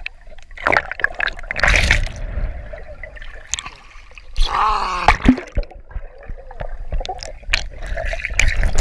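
Pool water splashing, trickling and gurgling around a camera that goes under the surface and back up, in irregular sudden bursts.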